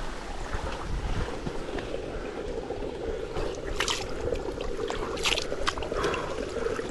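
Water sloshing and splashing as a person wades and washes in it, with a few sharper splashes about four and five seconds in.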